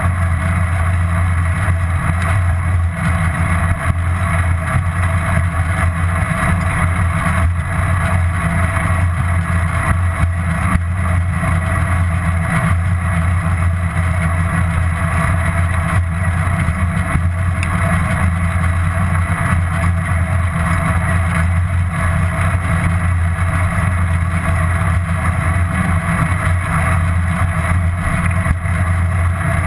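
Steady, unbroken low rumble of a bicycle ride as picked up by a bike-mounted GoPro, with an even hum and no sudden sounds.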